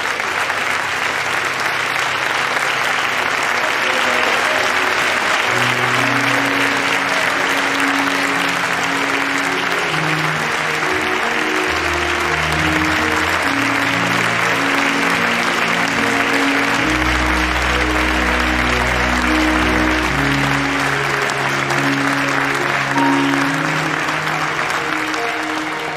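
Audience applause, steady and sustained. From about four seconds in, slow music of long held low notes plays underneath it.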